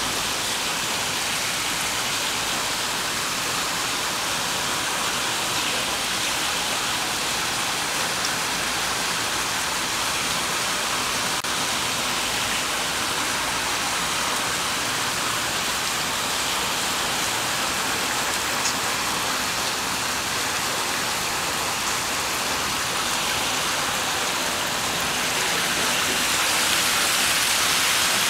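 Steady rush and splash of water from the Civil Rights Memorial's granite fountain table: a thin sheet of water runs across the top and spills off the rim into the drain grate below. The sound grows a little louder near the end.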